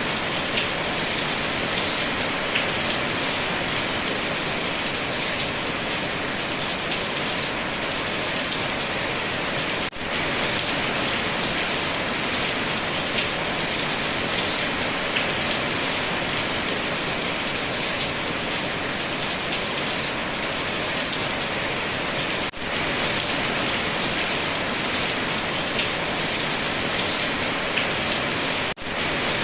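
Steady heavy rainfall, an even hiss of many drops striking a surface. The sound dips out briefly three times, about ten, twenty-two and twenty-nine seconds in.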